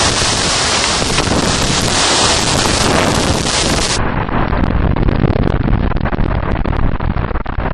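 Strong wind gusts rushing and buffeting the microphone in a loud, continuous roar, heaviest in the low end. The sound turns duller about halfway through.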